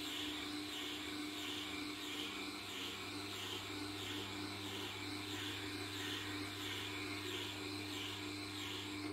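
Tormek sharpening machine running with a steady low hum while a knife is drawn slowly along its honing wheel. A soft swishing pulse comes about one and a half times a second.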